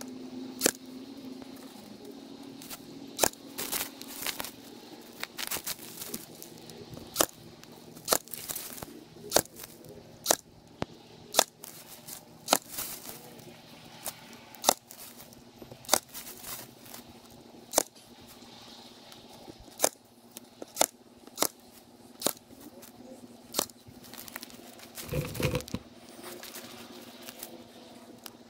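Ryobi cordless staple gun firing staples through chicken wire into timber, a sharp snap with each shot, about two dozen shots at an uneven pace. A brief scuffling noise comes near the end.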